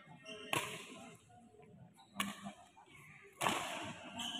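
Badminton rackets hitting a shuttlecock in a rally: three sharp hits, the last one loudest, each ringing on in a large hall.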